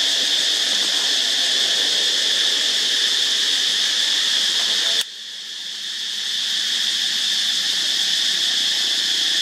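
Steady high buzzing chorus of forest insects. About halfway through there is a click, the chorus drops sharply, and it builds back up over the next few seconds.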